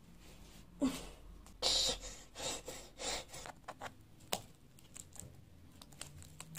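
Clear adhesive tape being pulled off its roll and wound around a person's waist, in several short noisy pulls; the longest comes just under two seconds in, with a sharp click a little past four seconds.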